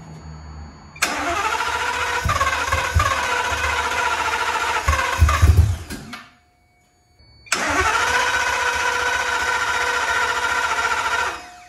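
Custom 40-valve four-valve Ford Modular V10 being cranked on its starter in two bursts, about five seconds then about four seconds with a short pause between, the starter whine rising at the start of each; a few low thumps come during the first burst. The engine does not catch, which the builders put down to too much fuel.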